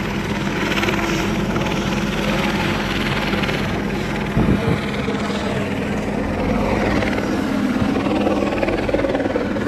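Steady mechanical drone with a low hum, like an engine running, and a brief low thump about four and a half seconds in.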